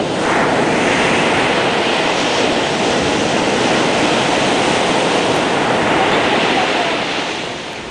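Ocean surf breaking and washing up a beach: a steady rush of waves that swells just after the start and eases off near the end.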